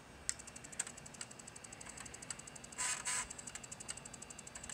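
SGI Indy's Floptical drive clicking in a fast even rhythm, about seven or eight ticks a second, with a louder rasping burst in two parts about three seconds in, as it works on a floppy disk formatted on another machine.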